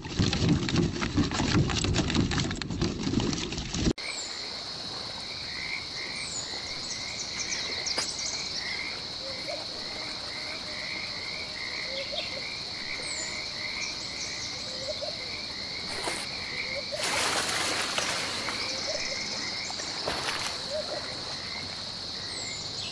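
Frogs croaking and insects trilling steadily at a pond edge, under a row of repeated short chirps. For the first four seconds, before a sudden cut, a loud rough rushing noise fills the sound instead.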